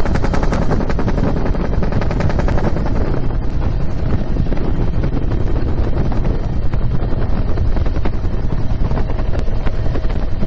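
UH-1 Huey helicopter in flight, heard from inside its open cabin: the two-blade main rotor makes a rapid, even thumping over a low engine rumble, with wind buffeting the microphone through the open door. The blade thumping is sharpest in the first few seconds, then blends more into the wind noise.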